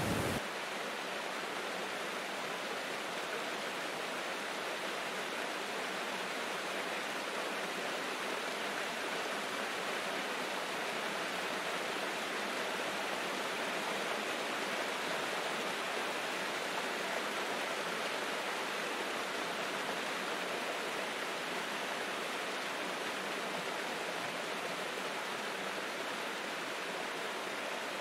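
A waterfall cascading over rock ledges: a steady, even rush of water, hissy and with little deep rumble.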